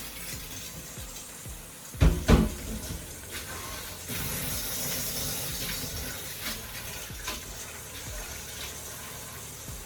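Kitchen tap running into a sink, with two loud knocks about two seconds in.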